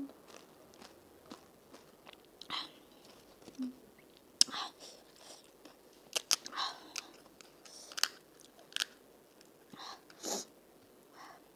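Close-up eating sounds of crisp fried panipuri shells: a series of separate crunches and crackles as they are chewed, with sharp cracks as a hollow puri shell is pressed open with the thumbs.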